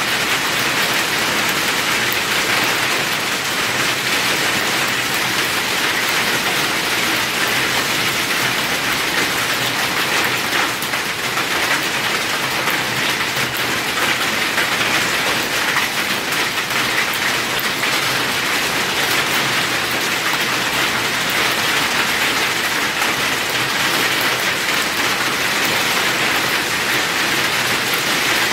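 Hail and rain pelting down steadily on a wet, puddled lot, a dense unbroken patter of small impacts.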